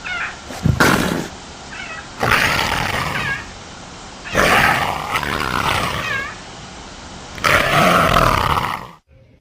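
Big-cat calls from leopard and clouded leopard recordings: four loud roaring growls, each half a second to two seconds long, with a quieter rasping growl between them.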